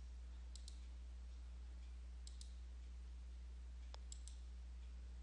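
Faint computer mouse clicks: three pairs of quick clicks a second or two apart, over a steady low hum.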